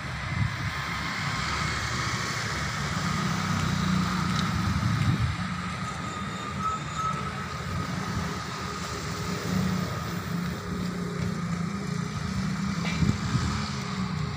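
A motor vehicle engine running with a steady low hum, in the wash of city traffic.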